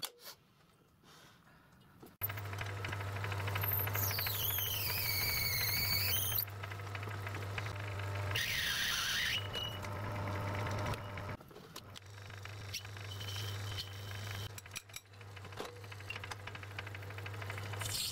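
Metalworking lathe running with a steady motor hum while cutting a small brass part. Twice the cut gives a high squeal that sweeps down and back up in pitch.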